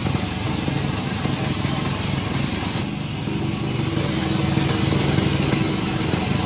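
Sawmill machinery running steadily, a continuous engine drone that grows a little louder about four to five seconds in.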